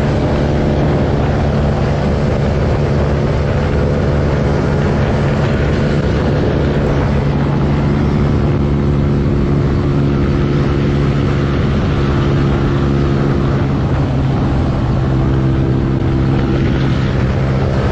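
Motorcycle engine at high, nearly steady revs, recorded by an onboard camera riding at speed on a road, with wind and road noise over it.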